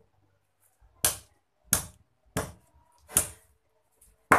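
Meat cleaver chopping raw chicken on a round wooden chopping block: five sharp chops, a little under a second apart, starting about a second in, with the last the loudest.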